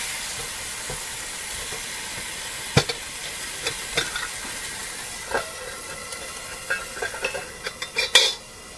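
A burger patty sizzling in a small stainless steel camp pot, with the slotted spatula scraping and clinking against the pot now and then. Near the end the metal lid clanks down on the pot, the loudest sound of all, and the sizzle turns quieter under it.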